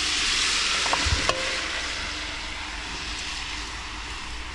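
Food sizzling in a kettle hung over a campfire, a steady hiss that is loudest at the start and eases off, with two light knocks about a second in.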